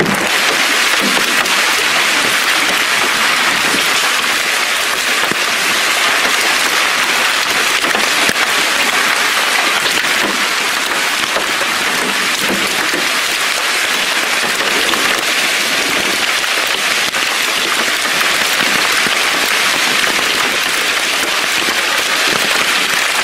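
Heavy hail coming down: a dense, steady clatter of hailstones.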